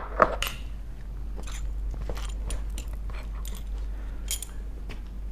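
Scattered small clicks and scrapes of a screwdriver working the screws on a ceiling fan's motor housing, with small metal parts being handled, over a steady low hum.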